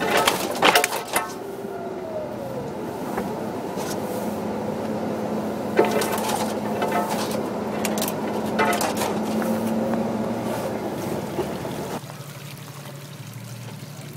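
Jeep driving over a snowy trail, heard from inside the cab: a steady engine and tyre drone with a few sharp knocks and rattles as it bumps along. About twelve seconds in it cuts abruptly to a quieter, lower engine sound.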